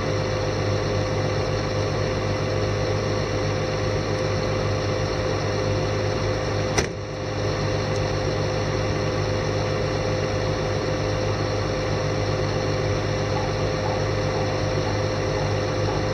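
Komatsu PW180 wheeled excavator's diesel engine idling steadily, with one sharp click about seven seconds in.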